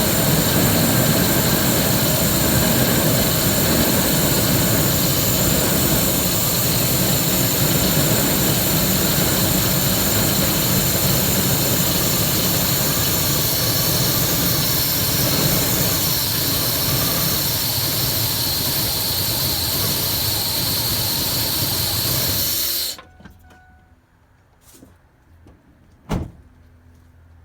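2001 Ford F-150's 5.4-litre two-valve Triton V8 idling roughly with a loud hissing, stifled sound, as if the engine is not getting enough air, then cutting out abruptly about three-quarters of the way through as the engine dies. A single knock follows a few seconds later.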